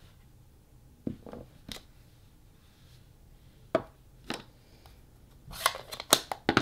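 Rubber stamping at a craft table: a few soft knocks and taps as a clear acrylic stamp block is pressed onto cardstock and lifted off. Near the end comes a run of sharp plastic clicks and clatter as an ink pad case is picked up and handled.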